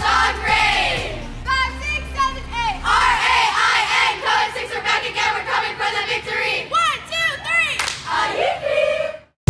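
A team of cheerleaders shouting a chant together in unison over background music, cutting off abruptly just before the end.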